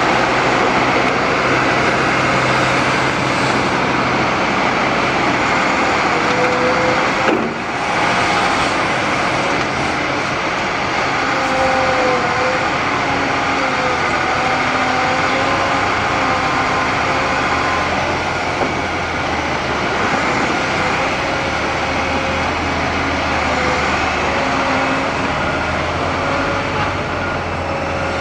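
Liebherr R 946 crawler excavator's diesel engine and hydraulics running steadily under load, with a low hum and a wavering whine, while it digs and swings soil for a loaded tipper truck. A brief knock about seven seconds in.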